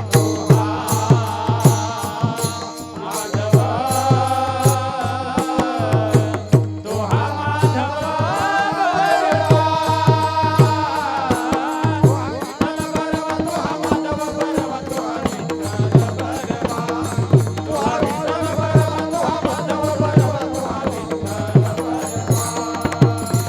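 Marathi devotional kirtan music: a wavering melodic line over a steady low drone, with regular low drum strokes about twice a second and sharp clicks throughout.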